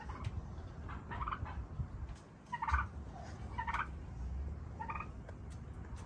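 Poultry calling: four short, pulsed cries about a second apart, the middle two the loudest, over a low rumble.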